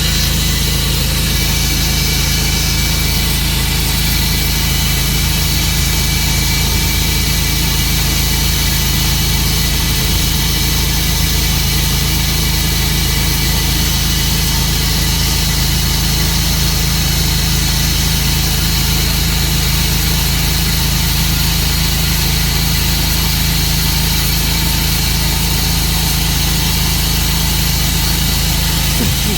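Tru-Cut sawmill's engine running steadily at an even speed.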